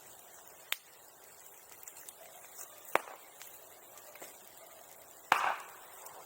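Bonfire crackling with three sharp pops, about a second in, about three seconds in, and the loudest about five seconds in with a brief crackle after it.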